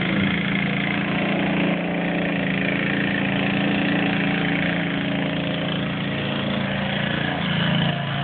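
Lawn mower engine running steadily, swelling briefly near the end.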